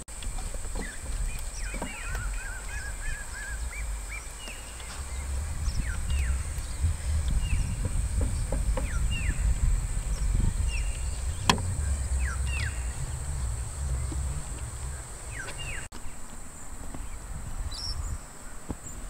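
Birds outdoors giving many short, falling chirps and a brief warbling call near the start, over a low wind rumble on the microphone and a steady high-pitched hiss. A single sharp click comes about midway.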